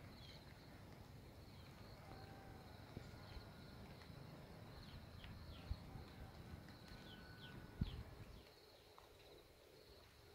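Faint rural ambience: birds giving short, falling chirps over a steady high insect hum, with a low wind or handling rumble that drops away about eight seconds in. Two soft thumps are heard, the louder one near the end.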